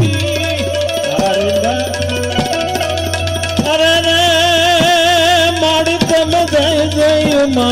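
Gujarati Santvani devotional folk song: a male voice sings long held notes with wide vibrato over tabla strokes and a steady sustained accompaniment.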